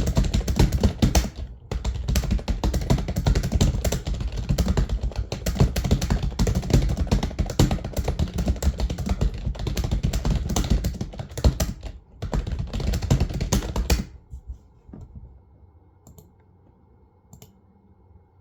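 Rapid touch-typing on a computer keyboard during a speed test run at around 100 words a minute: a dense, fast stream of keystrokes with two brief pauses, stopping about three-quarters of the way through. After that only a faint hum and a few scattered key clicks remain.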